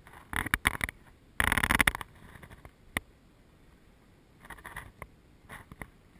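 Bursts of close scraping and clicking as the canoe brushes bankside twigs and brush, loudest in a half-second rasp about a second and a half in, with a single sharp click near the middle.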